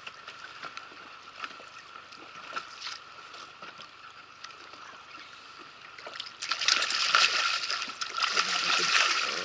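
Water lapping at the side of an inflatable boat with light clicks, then about six seconds in a sudden loud splashing as a hooked trout thrashes at the surface beside the landing net.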